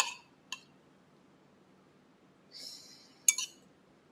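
A metal fork clinking against a ceramic serving bowl while lifting cooked vegetables: a clink at the start, a fainter one about half a second in, then a brief scrape and a louder clink near the end.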